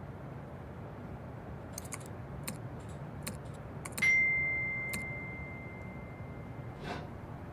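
A few light clicks, then a single high electronic ding about four seconds in, one clear tone that rings on and fades over about three seconds, typical of a phone message notification.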